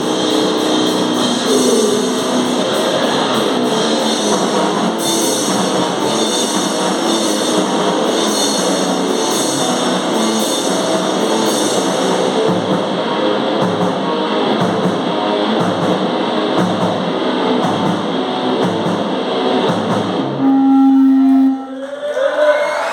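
Live hardcore noise-metal band playing: heavily distorted guitar and drum kit in a dense, loud wall of sound. Near the end it breaks into one loud held tone that cuts off, and the song winds down.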